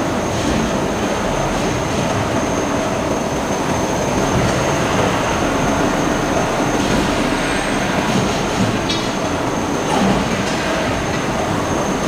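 Steady, loud industrial din of a steel forging shop's machinery, with a thin high whine running through it and no distinct hammer blows.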